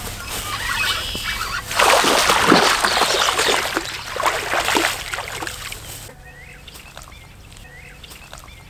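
Water splashing as a hooked largemouth bass thrashes at the surface. The splashing is heaviest in the middle and dies away about six seconds in, leaving faint bird chirps.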